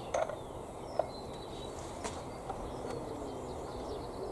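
Steady outdoor background hiss with faint bird chirps, and about three light clicks as a washer and wing nut are fitted onto a metal two-tier planter.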